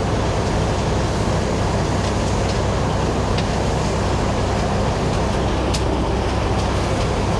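A dump truck's diesel engine runs steadily in low gear under an asphalt milling machine, while asphalt grindings pour into the dump box and hit the front of it. A few sharp ticks stand out over the steady noise.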